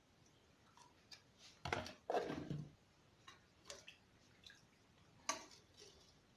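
Scattered clicks and knocks of kitchen containers and utensils being handled, with a louder clatter about two seconds in and another sharp knock near the end.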